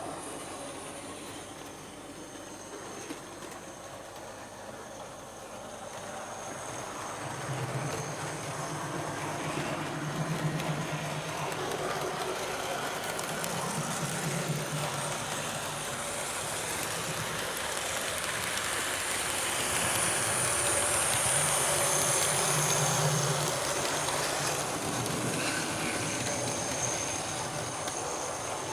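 Hornby HM7000 sound decoder in an OO gauge model locomotive playing recorded locomotive running sounds through the model's small onboard speaker. The sound gradually grows louder over the first twenty seconds or so, then eases off slightly.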